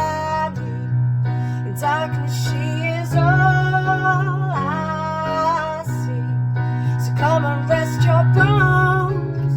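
Music: a slow pop song with guitar and keyboard accompaniment over a steady bass, and a melodic lead line that holds and bends its notes, with no clear words.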